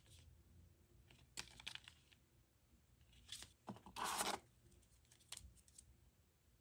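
Paper and cardboard packaging being handled: scattered soft rustles and clicks, with a louder half-second rustle about four seconds in as the coiled power cable is lifted from its cardboard tray.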